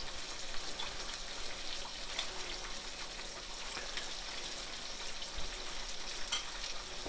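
Chicken deep-frying in a pot of hot oil: a steady sizzle with scattered small crackles.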